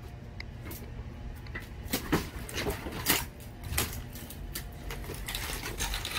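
Irregular knocks and cracks of rotted wooden garage framing being broken apart, the sharpest about two and three seconds in.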